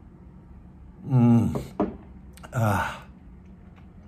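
A man's satisfied, breathy 'aah' after a sip of drink, voiced twice with falling pitch: a long one about a second in and a shorter one about a second later.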